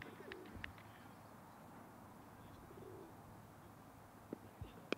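Pigeon cooing faintly over quiet outdoor ambience, with a few light clicks and one sharp click near the end.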